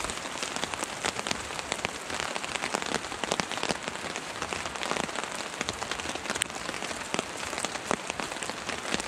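Steady rain falling on an Aqua Quest tarp overhead and on the snowy ground around it: a continuous hiss thick with the small ticks of individual drops.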